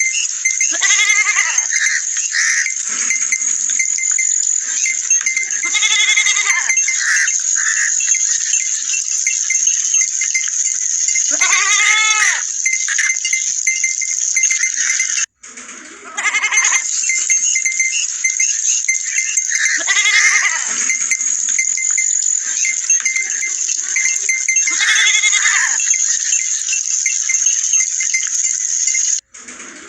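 Goats and sheep bleating: about six separate bleats, roughly four to six seconds apart, over a steady high-pitched hiss with a faint repeated ringing tone. The sound cuts out briefly twice, about halfway through and near the end.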